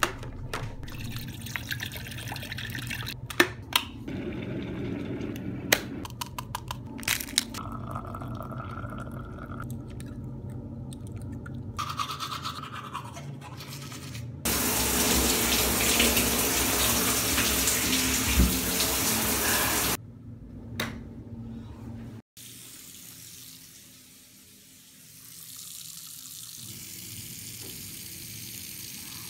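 Several sharp clicks and knocks, then teeth being brushed with a toothbrush. Water then runs hard for about five seconds and cuts off suddenly, followed by a couple of knocks and a low, steady room hum.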